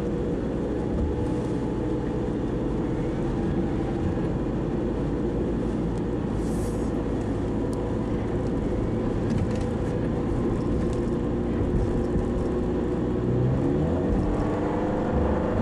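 Steady driving noise inside a Toyota HiAce van's cab: engine and tyres running on a wet road in stormy weather.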